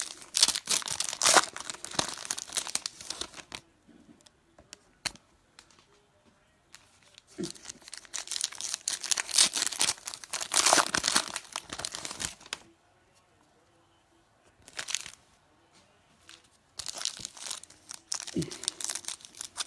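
Foil Donruss football-card packs being torn open and their wrappers crinkled, in several bursts of tearing and rustling with short quiet pauses between.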